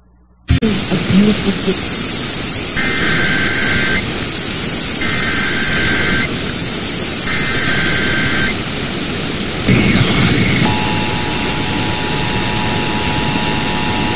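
Emergency Alert System broadcast through heavy radio static: the hiss comes on suddenly about half a second in, then three one-second bursts of warbling SAME header data tones, then the steady two-tone EAS attention signal starts about ten and a half seconds in.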